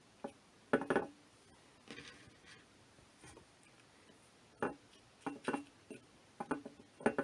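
Dry black beans being dropped by hand into a container lined with paper towel: scattered light clicks and taps in small clusters.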